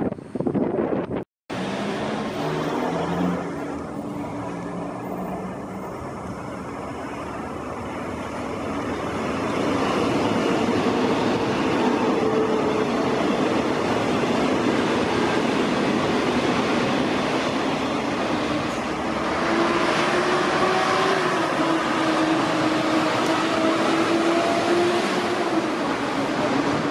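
Queensland Rail electric suburban train running through the station: steady rail and running noise with electric motor whines whose pitch steps up and down, getting louder about ten seconds in.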